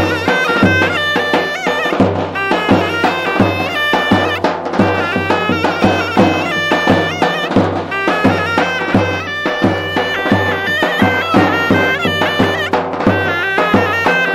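Traditional folk music: a loud reed pipe playing an ornamented melody over a steady drum beat.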